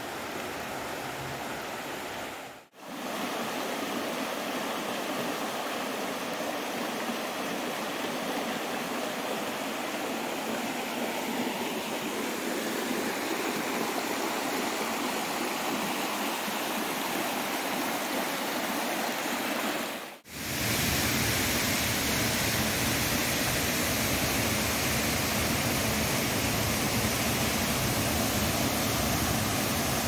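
Rushing stream water running over rocks, a steady noise. It breaks off sharply twice, about three seconds in and about two-thirds of the way through, and after the second break comes back louder and deeper.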